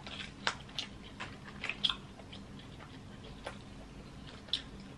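King crab leg shell cracking and snapping as it is broken apart by hand to free the meat: a quick run of sharp clicks in the first two seconds, then a few scattered clicks.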